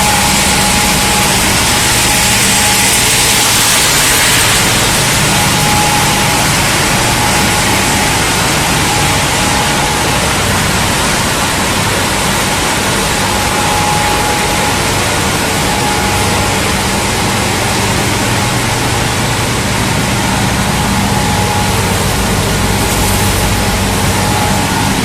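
Plastic film recycling and washing line machinery running steadily: a loud, even roar with a low hum and a faint steady whine.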